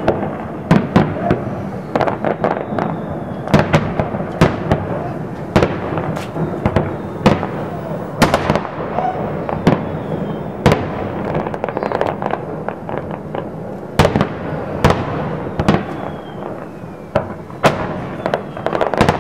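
Fireworks going off: a long irregular string of sharp bangs from bursting shells, at times two or three a second, over a continuous background din.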